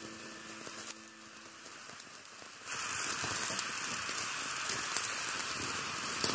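Chicken liver curry sizzling and bubbling in a pot as it cooks down, a crackly hiss that gets clearly louder about two and a half seconds in. Background music fades out in the first second.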